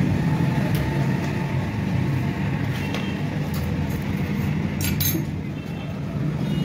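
Steady low drone of a running motor-vehicle engine, with a few light metallic clinks as clutch plates are set into a motorcycle clutch basket, the sharpest about five seconds in.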